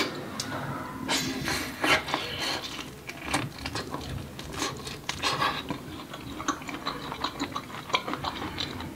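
Close mouth sounds of biting and chewing corn on the cob: a steady run of small crisp clicks and wet smacks.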